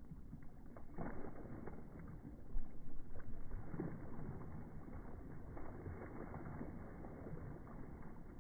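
Water sloshing and splashing as a dog paddles while swimming, with irregular small splashes and a louder stretch about two and a half seconds in.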